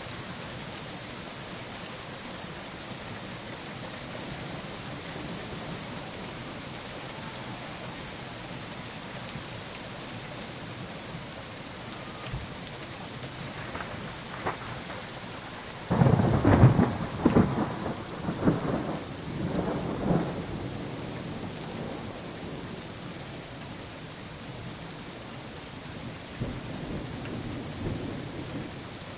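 Steady rain with a clap of thunder about halfway through that rolls on for about four seconds, then a fainter rumble of thunder near the end.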